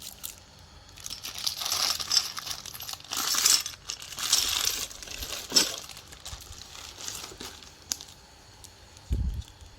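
Plastic packaging rustling and crinkling as it is handled and unwrapped, in several stretches, with a sharp click partway through and a dull thump near the end.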